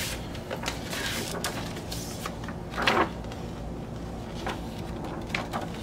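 Paper and cardboard handling: a vinyl LP's paper inner sleeve and printed insert being slid out of the album jacket. There are a few short sliding rustles, the loudest about three seconds in.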